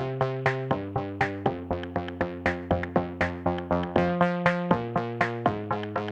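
Background electronic music: synthesizer chords over a steady drum-machine beat.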